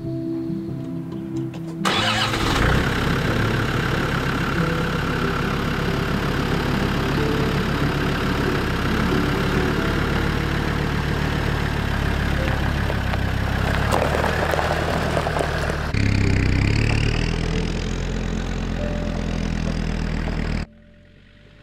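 Land Rover Defender 90 engine running as the vehicle drives off over gravel, its tyres rolling on the stones. The sound comes in suddenly about two seconds in and cuts off sharply near the end.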